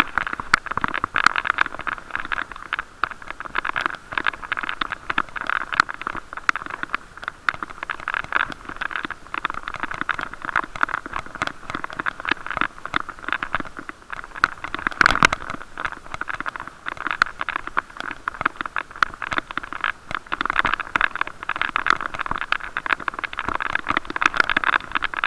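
Bicycle ride heard through an action camera's waterproof case: constant rattling and scraping from road vibration, dense with small clicks and knocks, with one louder knock about 15 seconds in.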